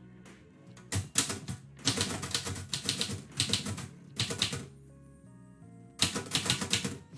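Typewriter keys striking in quick bursts of typing, several runs of rapid clacks separated by short pauses.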